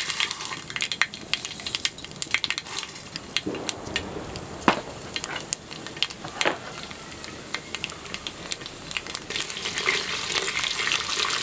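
Mustard seeds popping and sizzling in hot coconut oil as raw rice fries in it, with sharp pops throughout and a few louder ones midway. Near the end a spatula stirs the rice and oil, and the sizzle thickens.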